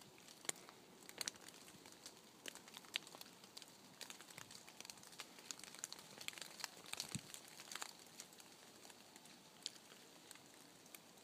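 Cold rain dripping onto dry fallen leaves: faint, irregular light ticks and crackles, a little thicker about six to eight seconds in.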